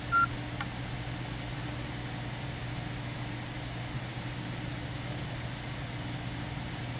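A steady low hum over a faint even hiss, with a short high beep and a click right at the start.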